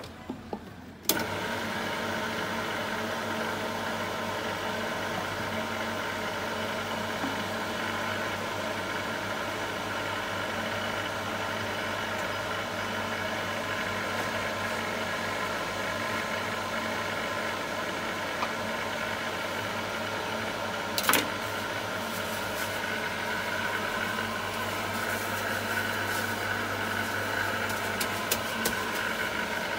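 Electric tahini mill grinding sesame seeds, its motor starting abruptly about a second in and then running steadily with a low hum. A short sharp knock sounds about twenty seconds in.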